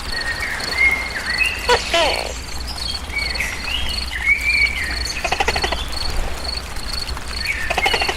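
A cricket chirping in a steady high-pitched pulse, about two to three chirps a second, with several short rising-and-falling whistled calls and a few brief rasping calls over it.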